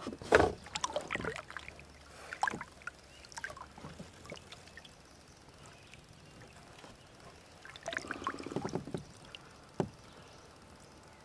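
Scattered knocks and clicks of handling in a plastic kayak, with one sharp knock about half a second in. Near the end comes a short patch of water splashing as a bass is held in the water for release.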